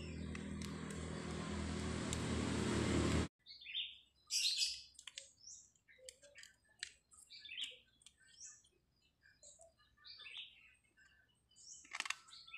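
A steady engine-like mechanical noise grows louder and cuts off suddenly about three seconds in. Birds then chirp here and there, with a few small clicks from handling the plastic grinder switch near the end.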